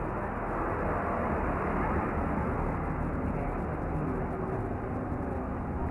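Steady outdoor background noise with no distinct events, a constant even wash of sound concentrated in the low and middle range.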